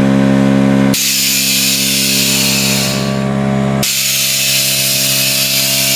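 Air hissing from a custom motorcycle's pneumatic air-ride suspension as it lets the bike down onto its frame: a loud hiss starting about a second in, a brief break, then a second long hiss, over a steady electric hum.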